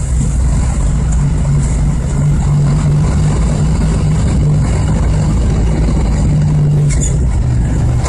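Vehicle engine running steadily with a low drone, heard from inside the cab while driving.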